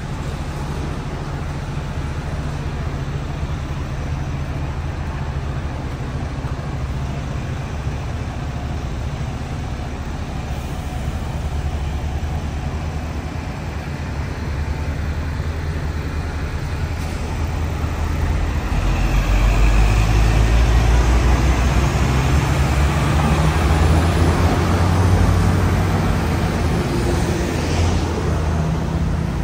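Hong Kong double-decker electric tram running: a steady low rumble that grows louder about eighteen seconds in, with a faint high whine slowly rising in pitch.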